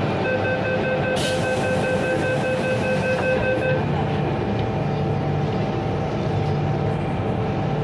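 Door-closing warning on an MTR M-Train: rapid beeping for about three and a half seconds, with a hiss through the middle of it, over the steady running noise of the train. After the beeping stops a low steady hum from the train carries on.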